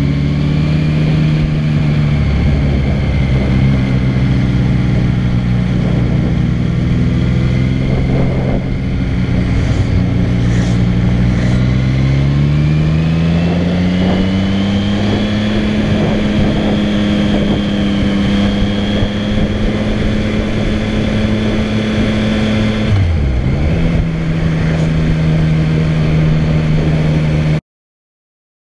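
Yamaha MT-09 motorcycle engine heard from on the bike while riding, running steadily; the revs climb gradually about halfway through and hold, then drop sharply and settle lower near the end. The sound stops abruptly just before the end.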